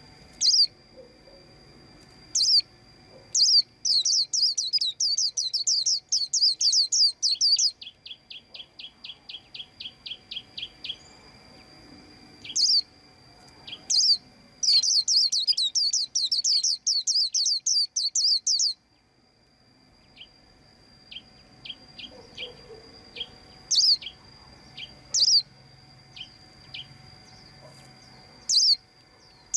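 A white-eye chirping. There are single sharp high chirps, then twice a fast run of repeated chirps lasting three to four seconds. The first run is followed by a slower string of lower notes, and soft short ticks come later on.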